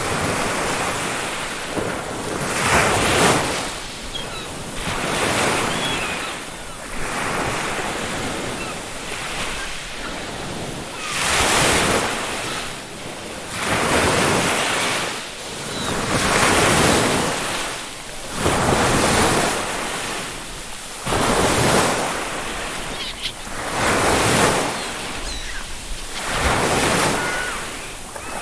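Ocean waves breaking and washing up on a beach, a fresh surge about every two to three seconds.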